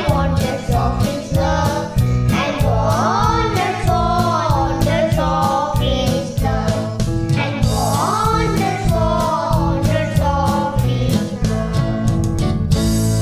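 Young children singing a Christmas song together over a backing track with a steady beat; the song ends on a held chord near the end.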